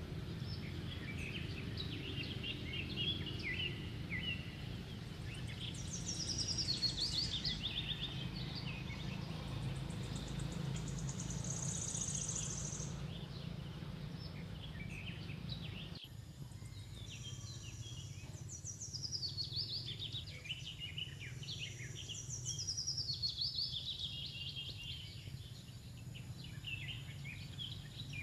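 Forest ambience: birds calling in repeated short chirping phrases, several of them falling in pitch, over a steady low background rumble. The background changes abruptly about halfway through.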